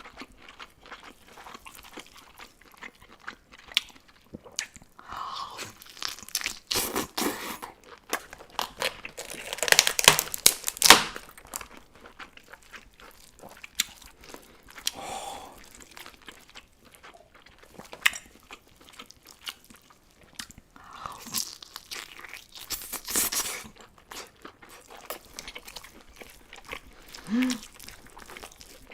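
Close-miked mukbang eating: a person chewing and biting into lobster, with bursts of crunching, loudest about ten seconds in.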